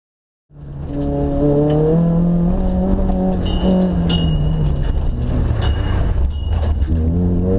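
Peugeot 106 hill-climb car's 1.6-litre four-cylinder engine heard from inside the cabin, cutting in about half a second in and revving hard under acceleration, its pitch climbing and dropping back at each gear change. A thin high squeal comes and goes midway through.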